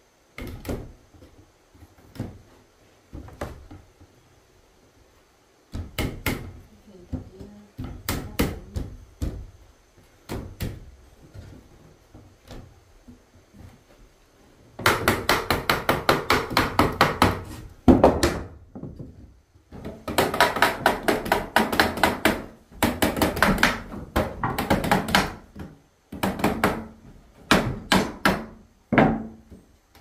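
Hammer striking wood. Scattered single knocks at first, then several runs of quick, even blows, about five a second, each lasting a few seconds, with a few separate knocks near the end.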